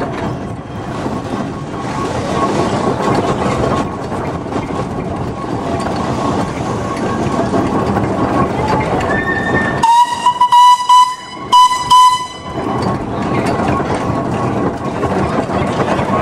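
Steam whistle blown in several short, loud blasts about ten seconds in, over the steady running noise and hiss of a steam road vehicle on the move.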